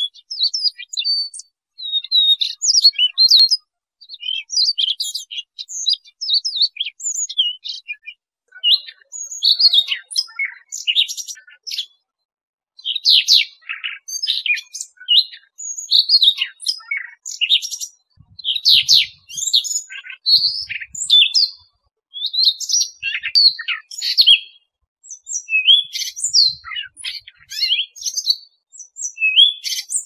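Siberian rubythroat singing: a fast, varied, high warbling song. The song comes in phrases of a second or two, with short pauses between them, repeated again and again.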